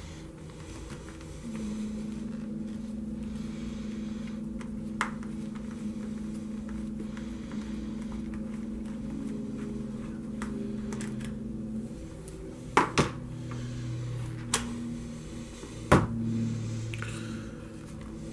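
A nut driver and the plastic wheel of a 2WD Traxxas Slash are handled as the wheel nut is unscrewed and the wheel pulled off, giving a few sharp clicks and knocks, mostly in the second half. Low steady tones hum underneath and shift in pitch partway through.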